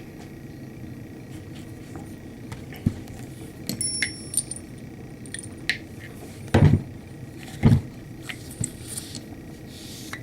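Small metallic clinks and rattles as a Glock pistol barrel is handled and cleaned with a bore snake, with two dull knocks a second apart a little past the middle.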